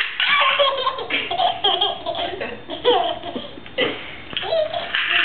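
A baby laughing hard in repeated bursts of high, gliding laughter, with short noisy bursts in between.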